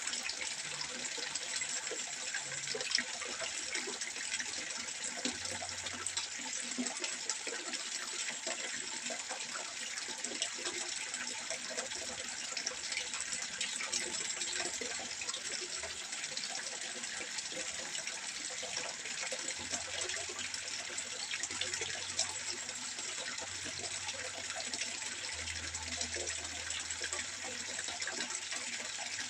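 Water trickling and splashing steadily into a fish pond, a continuous patter of many small splashes with no breaks.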